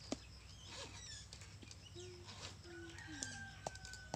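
Chickens clucking in short low calls, with a long thin whistled bird call in the second half and a few faint clicks as the chainsaw chain is worked by hand.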